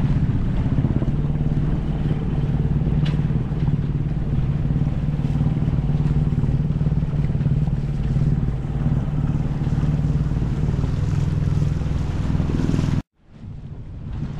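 Sailboat's auxiliary engine running steadily with a low drone as the boat motors under way, with wind and water noise over it. About 13 seconds in the sound cuts out abruptly, and wind and water come back without the drone.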